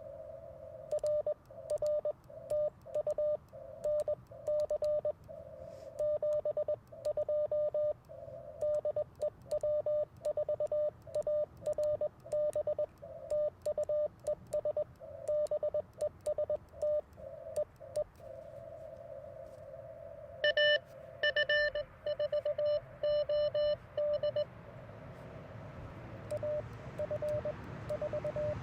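Morse code (CW) from the Icom IC-705 transceiver's speaker: a single tone of about 600 Hz keyed on and off in dots and dashes over a narrow band of receiver hiss. A louder stretch of code comes about two-thirds of the way in, and fainter code near the end.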